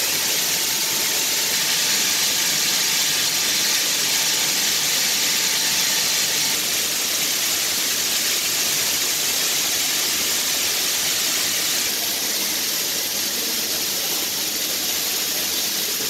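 Steady, loud hiss of running hatchery equipment, with a faint steady whine that stops about six and a half seconds in.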